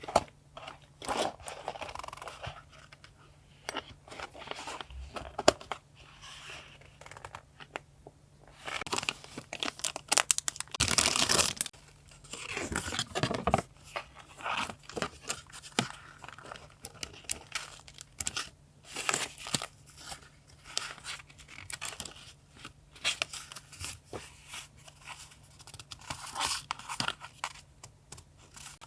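Paper being torn and crinkled by hand in short, irregular strokes, with a longer, louder stretch of tearing about eleven seconds in.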